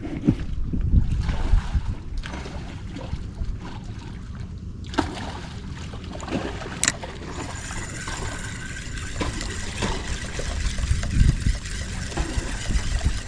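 Water sounds and low wind rumble around a small fishing boat, with scattered knocks and a sharp click about seven seconds in, after which a faint steady high whine sets in.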